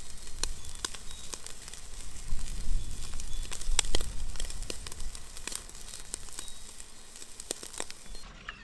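Small wood fire crackling, with many irregular sharp pops over a steady hiss.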